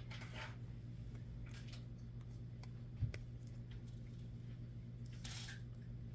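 Faint, scattered small clicks and a light knock from handling small metal jewellery parts (bracelet chain and slide clasp), over a steady low hum.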